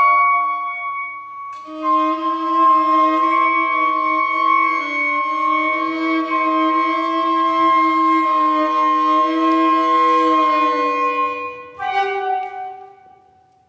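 Contemporary chamber music from a small ensemble of winds and bowed strings, holding long overlapping notes that shift slowly in pitch. The sound breaks off briefly about a second and a half in, a new chord enters near the end, and it fades away.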